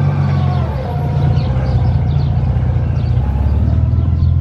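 Motorcycle trike's engine running under way, its low note shifting about a second in and again after three seconds.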